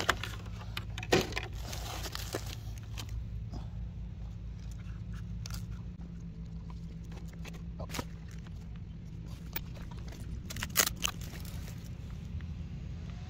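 Hands handling a large RC truck's plastic body and chassis: scattered clicks, taps and light rustling, with a sharp click about a second in and a few sharp clacks near the end, over a steady low rumble.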